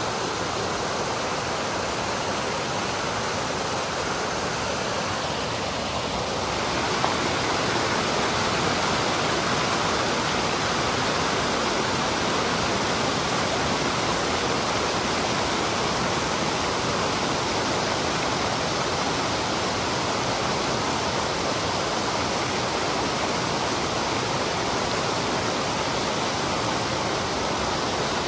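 Creek water in heavy flow, pouring over a rock ledge in a small cascade: a steady, even rush that grows a little louder about six seconds in.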